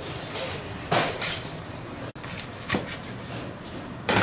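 A knife cutting a large Spanish mackerel into steaks on a plastic cutting board: a few sharp knocks and clatters of the blade and fish against the board, the loudest near the end.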